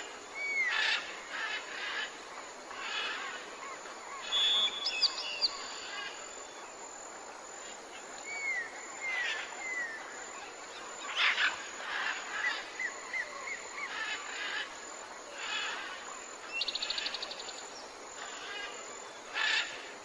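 A mix of wild birds calling and singing: repeated short downslurred whistles, chirps and a run of quick notes, with a fast buzzy trill near the end.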